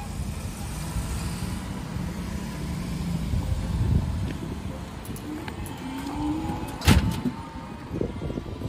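Street traffic: a car driving past close by over a steady low rumble of road noise, with one sharp knock about seven seconds in.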